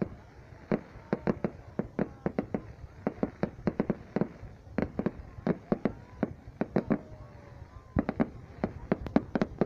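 Fireworks going off: many sharp bangs and cracks in quick, irregular clusters, with short lulls between the volleys.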